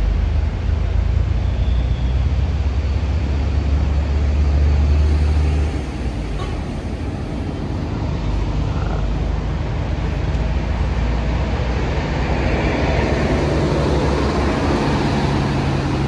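A tour coach's diesel engine running as the bus drives slowly past, a heavy low rumble that eases off about six seconds in and then carries on steadily.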